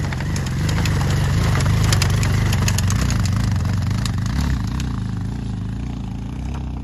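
Motorcycle engine running under load on a rough, rocky trail, its pitch wavering up and down with the throttle, with scattered sharp clicks and rattles over it. It gets louder about a second in and eases off toward the end.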